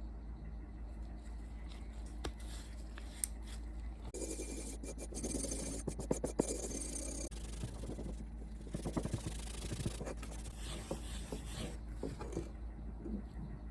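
Irregular hand scraping and rubbing on the rusty steel of an axe head as it is polished, with scattered light clicks.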